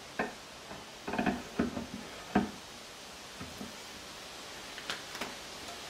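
Stainless steel boat propeller being fitted onto the splined prop shaft: a few light metallic clunks and clicks, bunched together in the first half with the loudest about two and a half seconds in, then fainter ones.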